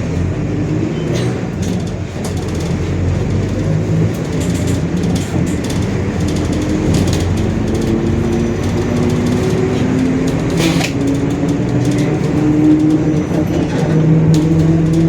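Mercedes-Benz OF-1721 Bluetec 5 bus running under way, its four-cylinder diesel and drivetrain giving a low drone with a whine that climbs slowly in pitch, twice, as the bus gathers speed. Scattered clicks and rattles run through it. The growling comes from the differential, which the uploader calls 'roncando'.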